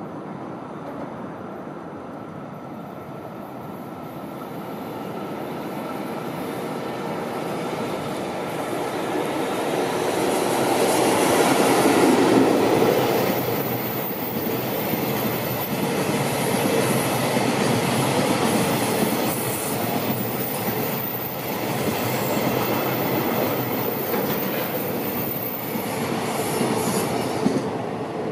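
Freight train of tank wagons, hauled by an EF65 electric locomotive, passing close by. The rumble builds to its loudest about twelve seconds in as the locomotive goes past, then the wagons clatter by with a thin, high wheel squeal, and the sound falls away near the end.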